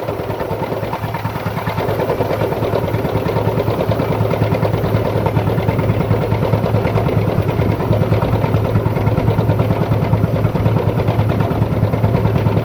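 Pile-drilling machine's engine running steadily under load, a low hum with a rapid, even throb.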